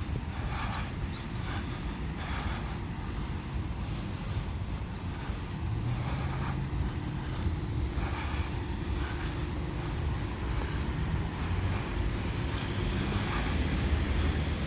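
Motor traffic going past, a steady low rumble that grows louder near the end.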